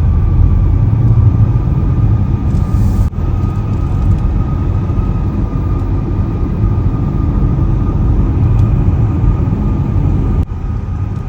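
Car driving slowly, heard from inside the cabin: a steady low rumble of engine and road noise, with brief breaks about three seconds in and near the end.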